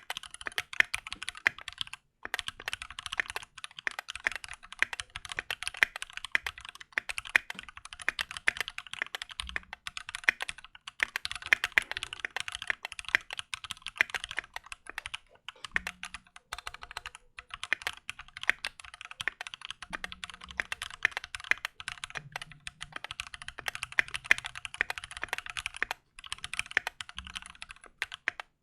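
Fast, continuous typing on a stock Keychron Q2 aluminium mechanical keyboard with tactile Gateron G Pro Brown switches: a dense run of key clacks with short pauses, a sound the owner finds still hollow and pingy.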